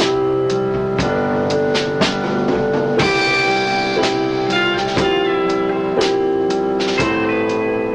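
Instrumental music led by guitar, with drums keeping a steady beat of about one strong hit a second.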